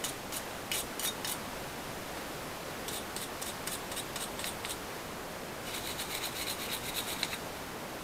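Brass wire brush scrubbing rust off a sump pump's heavy metal switch box: faint scratchy strokes in short bursts, with a quicker run of strokes near the end.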